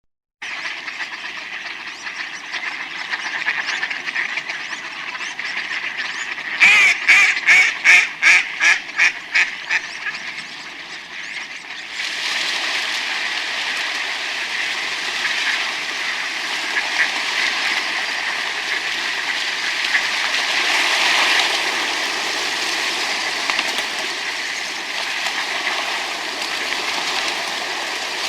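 Wild ducks quacking, with a run of about ten loud quacks in quick succession about seven seconds in. From about twelve seconds a steady rush of water sets in, with occasional duck calls over it.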